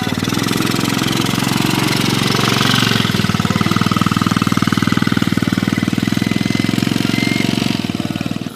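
Motorcycle engine running hard at steady revs, a fast even chatter of firing pulses, easing off just before the end.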